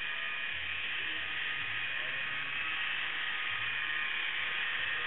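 Small electric motor and gears of a wooden walking Stegosaurus kit whirring steadily as they drive its legs.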